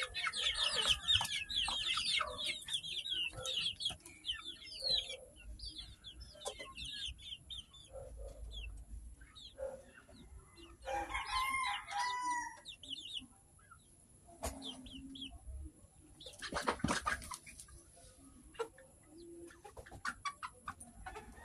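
Native farm chickens clucking and calling, with a flurry of quick high chirps in the first few seconds. A rooster crows once, about halfway through.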